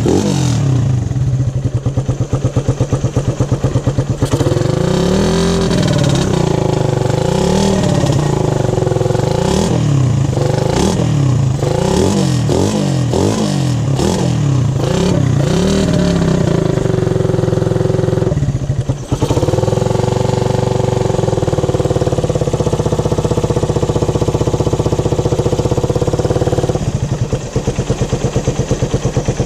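Suzuki Raider 150 single-cylinder engine running through a newly fitted big elbow exhaust: idling, then revved up and down in a string of quick blips for about twelve seconds, a brief drop near the middle, then held at a steady higher speed before falling back to idle near the end.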